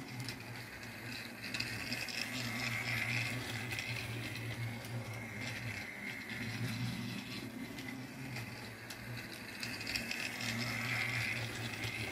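Battery-powered Trackmaster toy engine running on plastic track, its small motor and gears giving a steady whirring rattle that swells twice as it comes round the loop.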